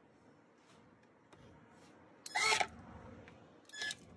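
Metal parts of a garbage disposal mount being handled: a short clatter with some ringing a little past halfway, then a brief clink near the end.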